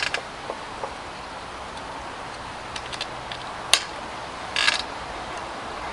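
Mechanical clicks from the action of a Kral Puncher NP-02 PCP air rifle being worked by hand to cock and load it: a quick cluster of clicks at the start, a few light clicks, then a single sharp click and a short rattle a little past the middle.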